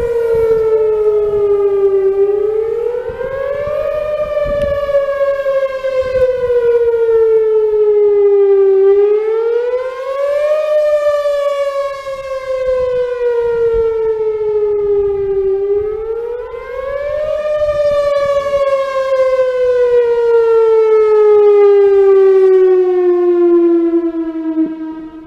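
Whelen WPS-4008 electronic outdoor warning siren sounding its wail tone during a system test: a loud electronic tone that sinks slowly, then climbs back up over about two seconds, three times over, and dies away near the end.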